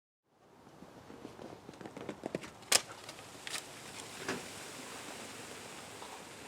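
Faint steady hiss with scattered light clicks and knocks, one sharp click near the middle standing out as the loudest.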